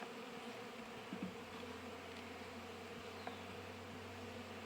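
Honey bees buzzing around an open hive, a steady hum of many wings, with a few faint knocks of hive frames being handled.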